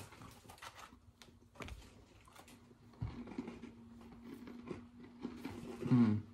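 Pumpkin Spice Oreo sandwich cookies being bitten and chewed close to the microphone, with short crisp crunches scattered irregularly throughout.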